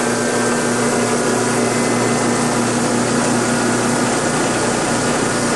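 Electric motor driving a generator through a belt and clutch, running steadily at about 1800 RPM: an even whir with a steady hum.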